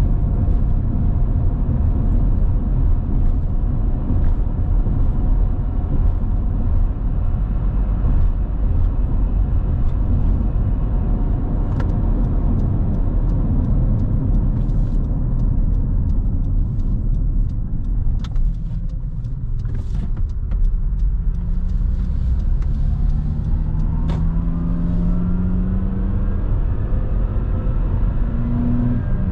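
Car driving on a highway, with a steady low rumble of road and engine noise. About two-thirds of the way in, an engine note rises in pitch, drops back, then rises again, as a vehicle accelerates through the gears.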